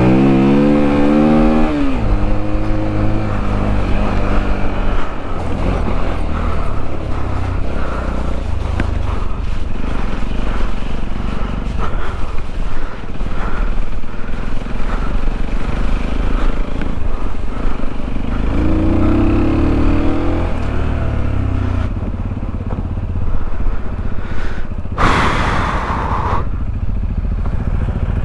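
Sinnis Terrain 125 motorcycle's single-cylinder 125 cc engine pulling as the bike is ridden off-road. The revs climb in the first couple of seconds, the engine runs with a low rumble and rattles, and the revs rise again about two-thirds of the way in. Near the end comes a short, loud rushing noise.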